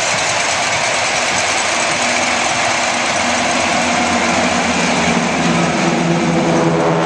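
Flyover by a formation of four single-engine propeller planes trailing smoke: a steady engine drone that grows louder from about two seconds in as they come overhead, over a constant wash of noise.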